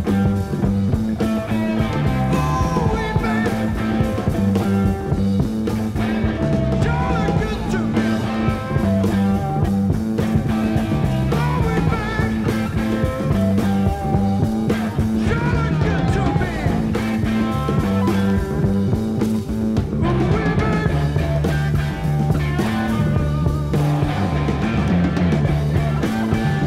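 Blues-rock band playing: electric guitar over bass and drums.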